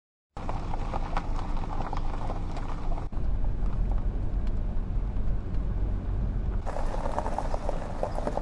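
A car driving, a steady low engine and road rumble that sets in just after the start. The sound shifts about three seconds in and again about seven seconds in, when a denser crackle of small ticks joins the rumble.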